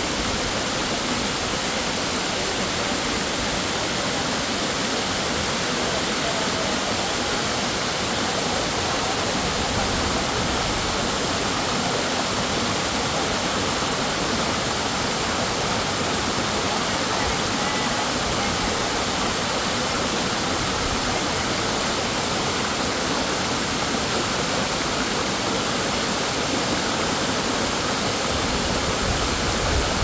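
Waterfall pouring into a stream: a steady, unbroken rush of falling water.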